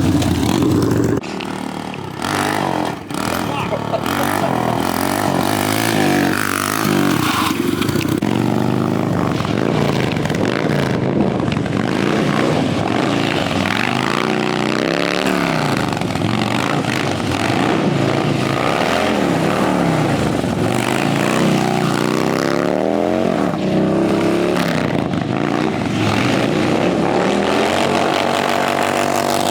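Harley-Davidson V-twin motorcycle engine revving hard again and again, its pitch climbing and dropping repeatedly, with a brief dip in loudness about a second or two in.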